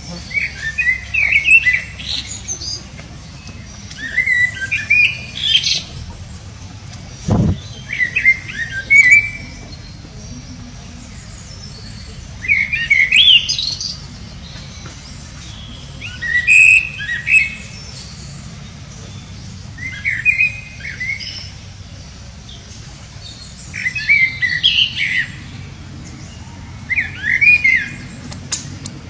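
Baby monkey crying: bursts of high, squeaky chirping cries, each about a second long, coming every three to four seconds. A single low thump comes about seven seconds in.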